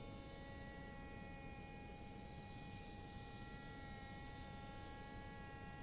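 Small drone motor running at a steady speed, a buzzing whine of several held tones that waver slightly in pitch.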